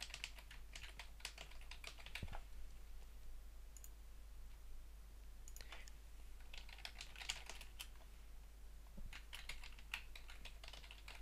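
Quiet typing on a computer keyboard, in several short bursts of key clicks with pauses between them.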